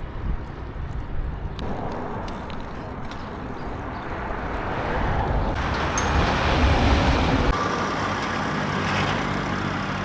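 City road traffic: cars and heavier vehicles running past with a steady engine rumble. The sound changes abruptly a few times, as the recording cuts between scenes.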